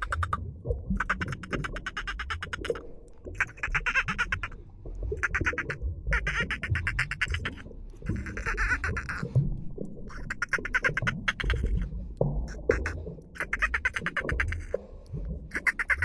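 Bottlenose dolphin burst-pulse sounds underwater: about ten trains of rapid clicks, each lasting roughly a second with short gaps between, over a low rumble of water.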